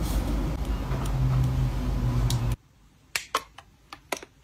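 A steady rushing noise with a low hum that cuts off abruptly about halfway, then a run of light, quick clicks and taps from a plastic cosmetic compact being handled.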